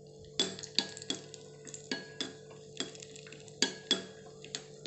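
A metal spoon stirring cashews in hot ghee in a small iron kadai: a dozen or so irregular sharp clinks and scrapes of the spoon against the pan, each with a short metallic ring.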